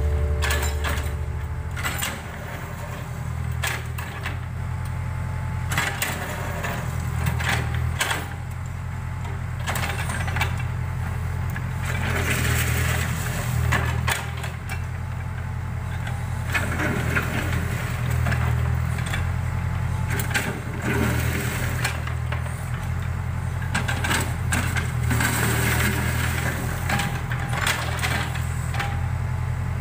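Backhoe loader's diesel engine running steadily, with scattered knocks and clanks of the machine working soil.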